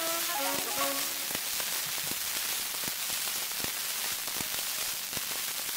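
The last notes of a saxophone, xylophone and piano fox-trot end about a second in. After that there is only the surface hiss and crackle of a 78 rpm shellac disc, with a click about every three-quarters of a second, once per turn of the record, as the stylus rides the run-out groove.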